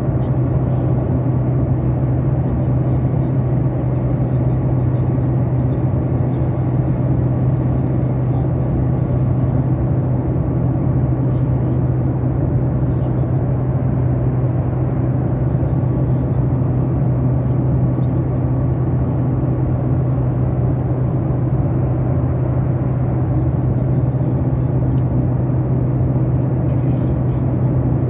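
Airliner cabin noise: a steady, unbroken low drone of the jet engines and airflow, with a strong low hum underneath.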